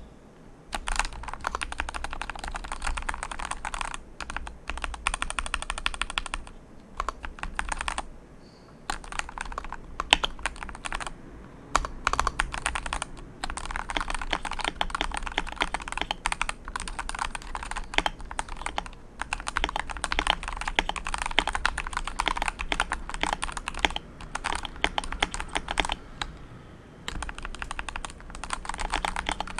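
Vortex M0110 mechanical keyboard with Gateron G Yellow Pro linear switches being typed on quickly, a dense run of key clacks. It stops briefly a few times, longest about seven seconds in.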